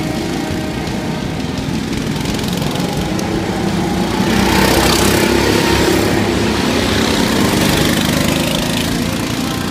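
Go-kart engines running as several karts lap the track, swelling loudest from about four seconds in as karts drive close past, then easing off near the end.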